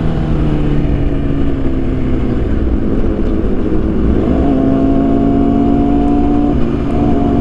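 Motorcycle engine running on the move, with wind rushing over the microphone. The engine note eases slowly downward, then rises about four seconds in and holds steady.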